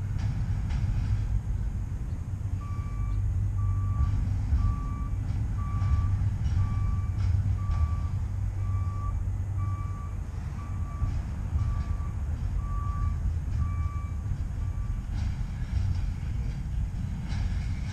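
A freight train rumbles steadily past. Over it, a vehicle's reversing alarm beeps about once a second, thirteen times, starting a couple of seconds in and stopping near the end.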